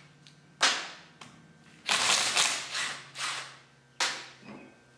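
Several sharp metal knocks and clanks, each ringing out briefly, from tools and axle parts being handled during a Dana 60 front axle kingpin teardown. One comes about half a second in, a quick cluster follows around two seconds in, and a last one comes near the end.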